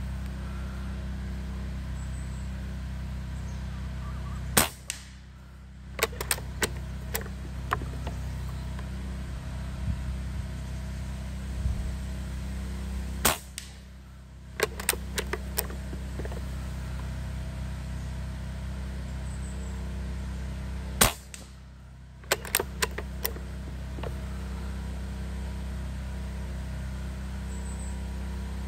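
Three shots from an Umarex Gauntlet .22 PCP air rifle firing lead slugs, each a sharp crack, about eight seconds apart. A second or two after each shot comes a short run of clicks as the bolt is worked to chamber the next slug from the magazine. A steady wind rumble on the microphone runs underneath.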